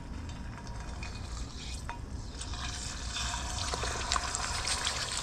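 Hot oil sizzling as a whole seasoned snapper is lowered into the pan, the crackling and popping growing denser and louder from about halfway through.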